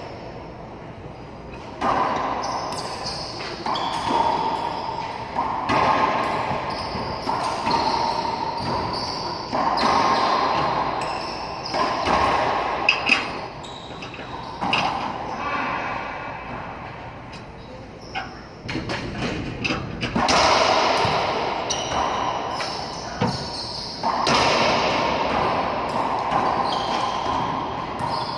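Racquetball rally in an enclosed court: the rubber ball smacking off racquets and walls again and again, each hit ringing and echoing around the court.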